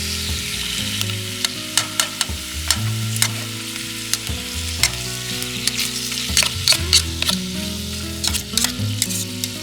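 Food sizzling in a pan over a fire, with a steady hiss and frequent sharp pops and crackles. Background music with low notes that change every second or so plays underneath.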